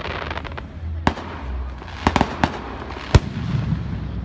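Aerial fireworks going off: a quick crackling at the start, then several sharp bangs, the loudest just after three seconds in, over a low rumble.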